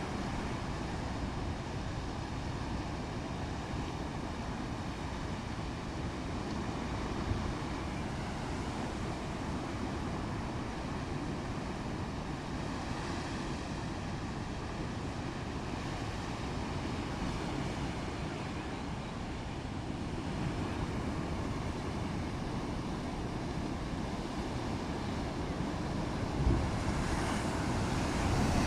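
Rough, stormy sea: waves churning steadily under strong wind, with wind rumbling on the microphone.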